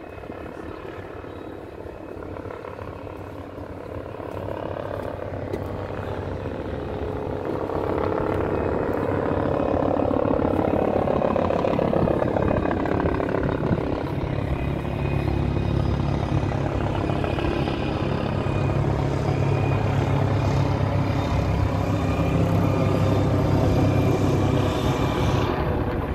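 A heavy engine running with a steady low drone that grows louder about eight seconds in.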